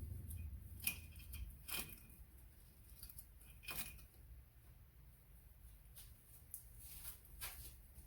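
Faint, scattered metallic clicks and clinks, a second or two apart, some with a short ring, from tools and metal parts being handled.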